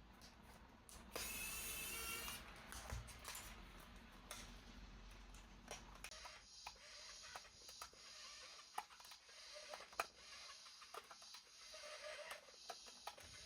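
Toy packaging being handled: a brief rasp about a second in, then faint scattered clicks, taps and rustles of plastic and cardboard.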